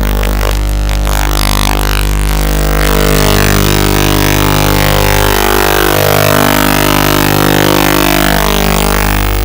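Loud electronic music built on a steady, droning low tone that holds throughout.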